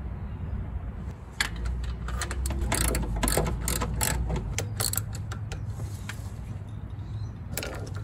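Socket ratchet clicking in several short runs as new spark plugs are tightened down, with one last run near the end.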